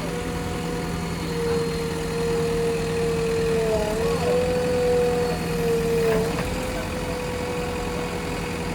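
JCB backhoe loader's diesel engine running steadily, with a high whine over the hum that dips briefly in pitch about four seconds in and again about six seconds in.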